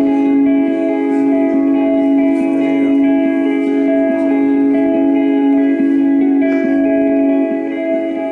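Live song intro on electric guitar: sustained notes ringing over a steady held low drone, the higher notes changing every second or so, with no singing yet.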